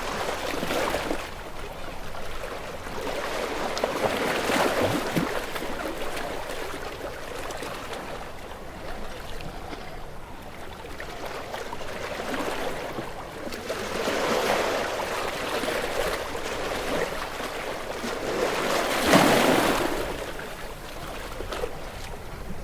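Ocean waves breaking against rocks. Each wave swells and washes back, with the loudest crash near the end.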